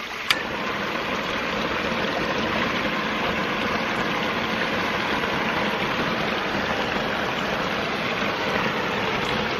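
Handheld propane torch burning with a steady roaring hiss, heating the end of a 1¼-inch poly pipe to soften it for a barb fitting. A sharp click just after the start, then the steady flame noise.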